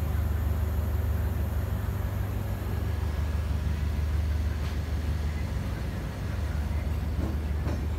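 Diesel engine of a Nepal Railway DEMU (diesel-electric multiple unit) power car running with a steady low drone as the train pulls slowly out, with the hiss of the moving train over it. A few faint clicks come near the end.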